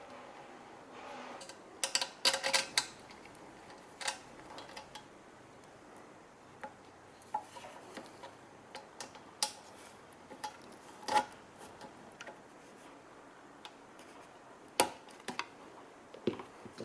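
Small metal parts and hand tools clinking and clicking as they are handled: a quick run of clinks about two seconds in, then single irregular clicks, the loudest near the end.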